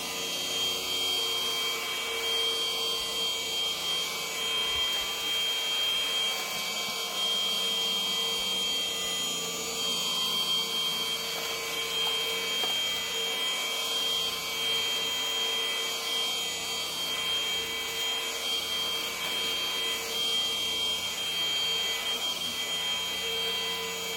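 Cordless stick vacuum running steadily on its lowest suction setting while it is pushed over a rug to pick up debris: a continuous motor whine with a few fixed pitches over rushing air.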